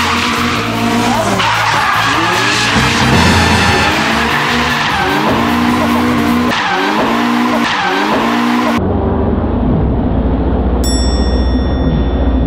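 Mazda MX-5 roadster drifting: the engine revs up and down in quick swings over tyre screech. About nine seconds in the sound changes abruptly to a deep low rumble, with a bright ringing tone near the end.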